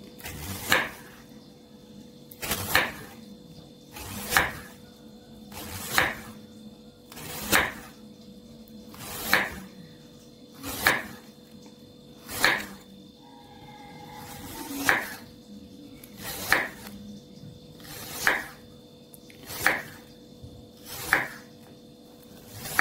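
Kitchen knife slicing an apple thinly on a wooden cutting board: about fourteen cuts, roughly one every one and a half seconds, each a short swell ending in a sharp tap of the blade on the board.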